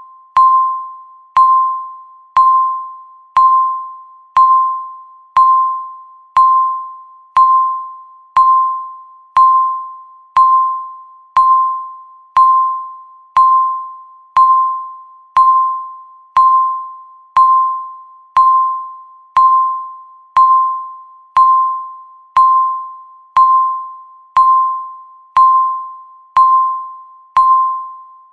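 Countdown timer beeps, one a second: a single ringing tone around 1 kHz, each beep starting sharply and fading before the next, with no change in pitch or pace.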